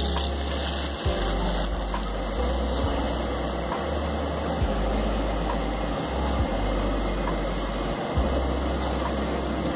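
Paratha sizzling steadily in ghee on a hot tawa, with a low hum underneath and a few light clicks of metal tongs against the griddle.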